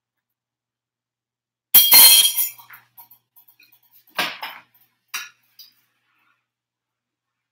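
Plates clattering and clinking: one loud clatter about two seconds in, followed by a few light clinks and two more knocks.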